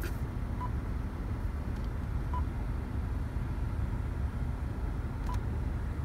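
Three short, single-pitched beeps from a Joying Android car head unit as its touchscreen is tapped, spaced about two and three seconds apart. Under them, the car's steady low rumble.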